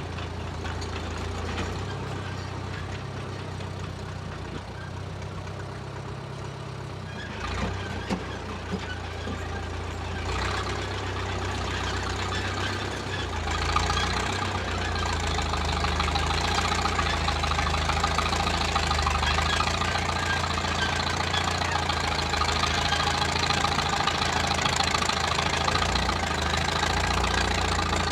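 1934 Caterpillar crawler bulldozer's engine running while the dozer works. It grows louder and busier about halfway through, with a couple of sharp clanks about eight seconds in.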